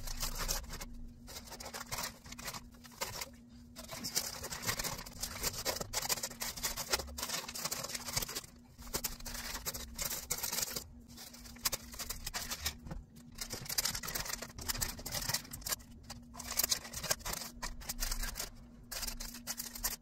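Grocery packages being handled and set on pantry shelves: irregular rustling, light knocks and clicks, over a steady low hum.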